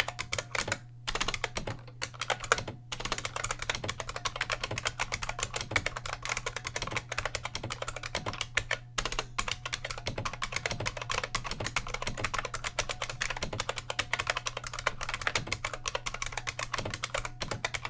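Continuous fast typing on a bolt-modded IBM Model M keyboard: sharp clicks from its buckling-spring switches, with a few short pauses. A steady low hum runs underneath.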